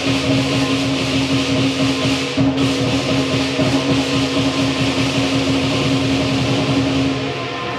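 Lion dance percussion playing fast and without a break: a big drum beaten rapidly under continuous clashing cymbals and a gong. The cymbals drop out briefly about two and a half seconds in and again near the end.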